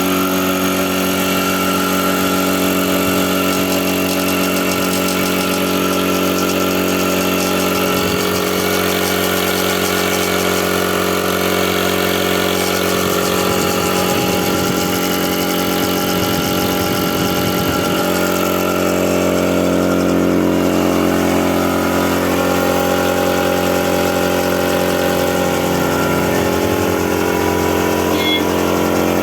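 A 2 hp Max air compressor running steadily: a loud, even mechanical hum with several tones and a faint squeal. This is the running noise being treated as a fault to repair.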